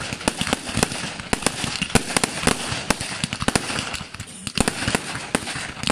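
Fireworks going off in a dense barrage: sharp bangs several times a second with a continuous crackle between them.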